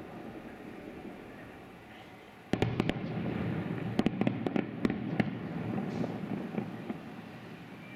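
Aerial fireworks display: a fading rumble, then a sudden volley of sharp bangs from bursting shells about two and a half seconds in, a second cluster of bangs around four to five seconds in, and the reports dying away near the end.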